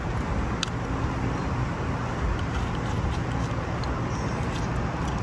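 Steady outdoor background noise with a faint low hum, and one small sharp click about two-thirds of a second in as the floodlight is handled against its metal mounting bracket.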